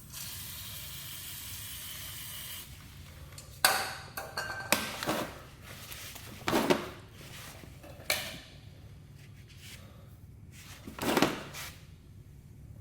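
A spray hisses steadily for about two and a half seconds, then stops. It is followed by a string of separate knocks and clatters, five or six in all, from parts or tools being handled.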